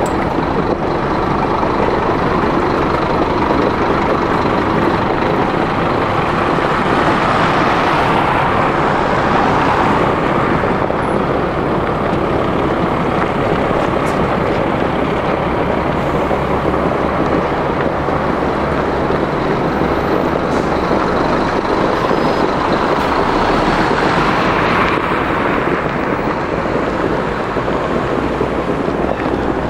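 City buses running close by: a steady engine rumble with tyre and traffic noise, swelling twice as buses move past.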